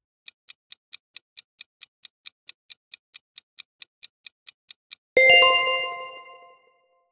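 Countdown-timer sound effect: light, even ticking at about four or five ticks a second for about five seconds, then a bright bell-like chime that rings out over about a second and a half, signalling that the correct answer is revealed.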